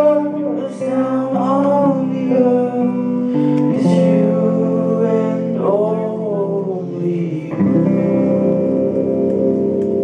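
Live rock band playing electric guitars, bass and drums, with singing over them. About seven and a half seconds in the music shifts to a lower, fuller chord.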